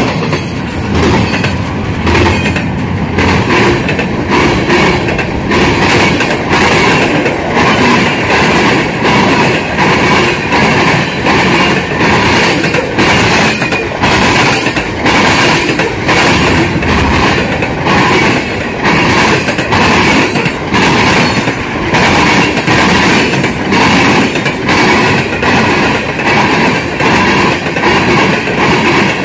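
Freight train rolling past at close range, with intermodal well cars and then tank cars. A steady rumble of steel wheels on rail, with a quick, uneven run of clicks as the wheels pass over rail joints.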